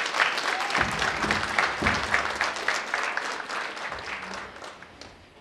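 An audience applauding, dense clapping that thins out and dies away near the end.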